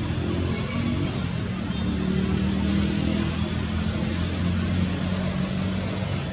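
A motor vehicle's engine humming steadily over a constant background hiss.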